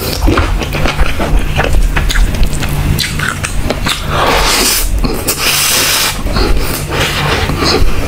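Close-miked eating of curry and rice by hand: loud wet chewing, lip-smacking and squelching mouth sounds, with a longer stretch of crunchy, squishy noise about four seconds in as a handful of rice goes into the mouth. A steady low hum runs underneath.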